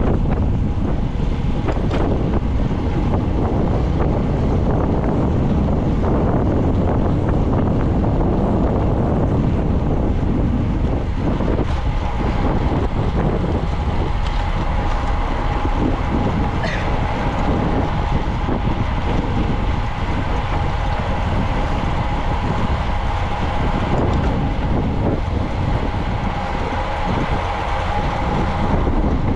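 Wind rushing over the microphone of a camera on a racing bicycle, a loud, steady, low rumble. A faint, steady whine joins about halfway through.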